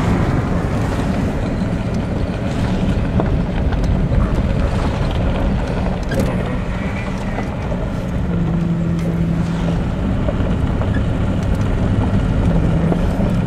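A vehicle driving at road speed, heard from inside the cabin: a steady low drone of engine and tyres with wind rush.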